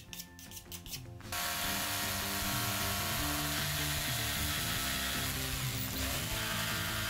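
A few quick scratching strokes, then about a second in a jigsaw starts cutting through MDF and runs steadily through the sheet.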